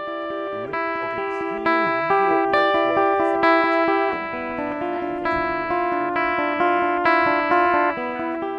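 Background music: a solo guitar picking single notes that ring on and overlap one another.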